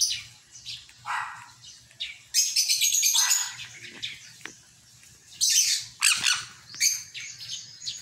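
Pet sun conures giving several short, high-pitched chirping calls in separate bursts, the loudest a little under halfway through and again about two-thirds of the way in.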